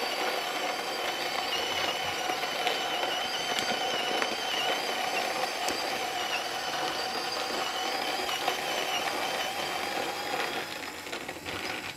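Option-O Lagom Mini electric grinder with 48 mm conical burrs grinding a 10 g dose of coffee beans at a pour-over setting: a steady motor-and-burr grinding noise with a high, screechy tone riding over it. The grinding thins out near the end and stops.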